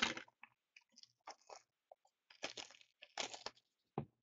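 Hockey-card packs and their box packaging being handled: faint crinkling and rustling in several short, irregular bursts.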